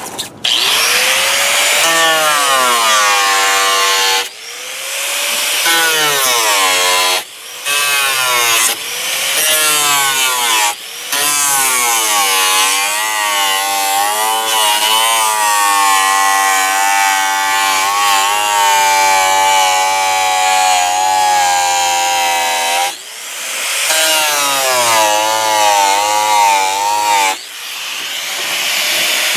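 Angle grinder with a thin cutting disc cutting through thermoformed acrylic sheet, trimming the excess flange from a formed letter. The motor's whine wavers up and down in pitch as the disc bites into the plastic, and the sound breaks off briefly several times.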